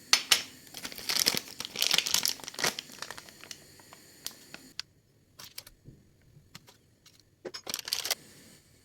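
Crinkling and rustling of something handled, with small clicks, dense for the first three seconds, then a few scattered clicks and a second short burst of crinkling near the end.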